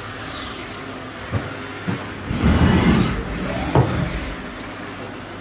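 Haas CNC milling machine spindle whine falling in pitch as the spindle winds down at the end of the cut. A few sharp clunks follow, then a loud rushing, sliding noise about two and a half seconds in, and another knock.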